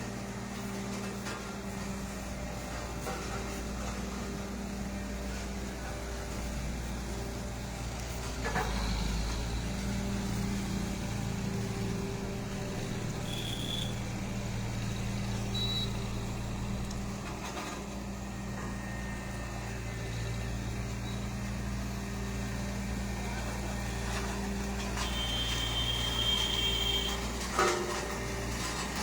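Road roller's diesel engine running steadily at work, with a couple of sharp knocks and a high beep lasting about two seconds near the end.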